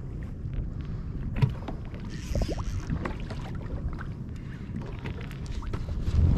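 Wind rumbling on the microphone aboard a kayak on open water, with water sloshing against the hull and a few small knocks. A brief splashy hiss comes about two seconds in, and a louder thump near the end.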